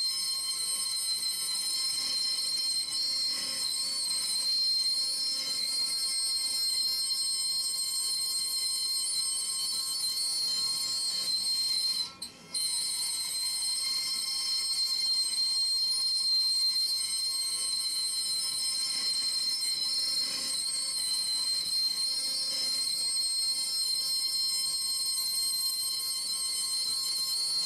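CNC router spindle running with a steady high-pitched whine as the bit cuts a groove into a wooden board. The sound cuts out briefly about twelve seconds in.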